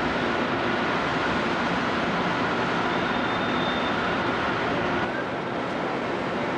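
Steady rail-yard machinery noise, a constant hum and hiss with a few faint held tones, dipping slightly about five seconds in.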